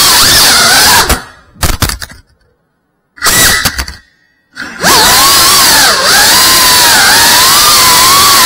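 Tiny whoop FPV drone's small brushless motors whining, pitch rising and falling with throttle. The whine cuts out about a second in with a few knocks, leaving silence broken by a short buzz. Near five seconds the motors spin back up with a rising whine.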